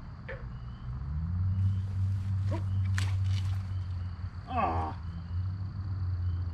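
Outdoor night sound: a steady high insect-like drone, a few short animal calls, and a low steady hum that swells in about a second in and holds. Two sharp clicks come near the middle.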